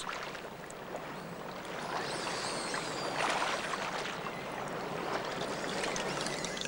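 Steady rushing of flowing water, as from a stream or hot spring outflow. A few faint high squeaky calls sound about two to three seconds in.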